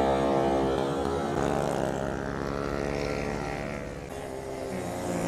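Motorcycle engines running as a group of sport bikes rides past, their pitch sliding as they go by, with a brief dip in loudness near the end.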